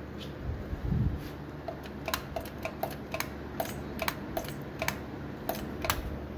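Throttle linkage of a Holley Street Demon carburetor worked by hand, clicking sharply about a dozen times at an uneven pace as it snaps back. A low thump about a second in.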